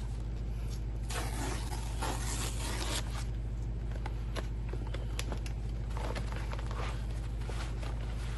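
A mailed package being torn open by hand: a ripping, scraping tear lasting about two seconds from about a second in, then scattered rustles and small clicks as the packaging is handled, over a steady low hum.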